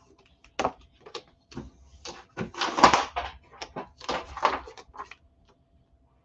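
Sheets of cardstock and a score tape sheet being handled and slid across a cutting mat: a string of short paper rustles and scrapes, loudest about three seconds in, stopping about five seconds in.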